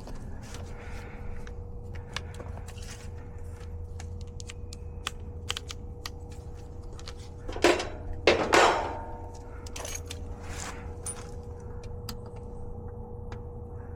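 Clicks and light metallic rattles of tools and parts being handled, over a steady low hum with a thin steady tone. About eight seconds in come two louder, harsh rasping noises.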